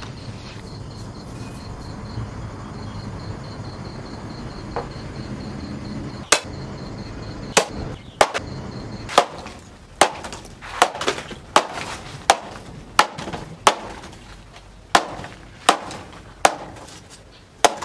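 A large, heavy forged knife chopping a woody stalk into pieces against a wooden log. There are about fifteen sharp chops at an uneven pace, starting about six seconds in after a stretch of low background sound.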